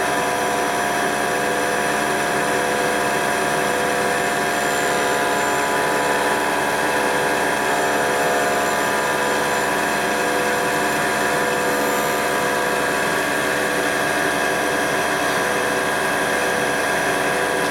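Vertical milling machine running, its end mill cutting an aluminium brake caliper bracket: a steady whine of several tones that holds unchanged throughout.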